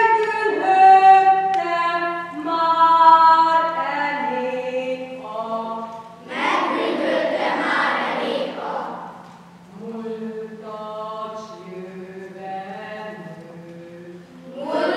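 Choir of schoolchildren singing unaccompanied, holding long notes that step from one to the next. About six seconds in, a louder, rougher stretch of some three seconds covers the tune, then quieter singing resumes.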